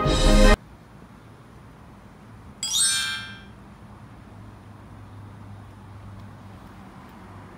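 Background music cuts off just after the start, leaving faint outdoor ambience with a low steady hum. About two and a half seconds in comes a short, bright chime, an edited-in sound effect.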